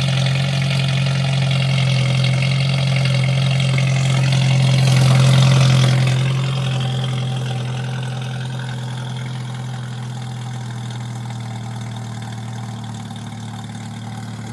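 Jeep Wrangler YJ's 2.5-litre fuel-injected four-cylinder engine idling steadily just after a cold start, with an almost diesel-like note. It is loudest close to the steaming tailpipe and grows fainter from about six seconds in.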